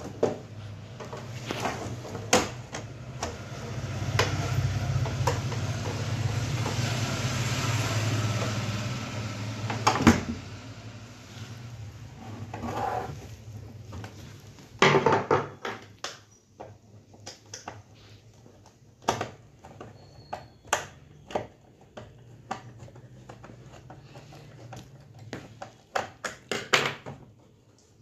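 Plastic casing of an LED TV being handled on a workbench: a continuous rubbing, scraping noise for about the first ten seconds, then scattered knocks and clacks as the panel and back cover are moved and set down.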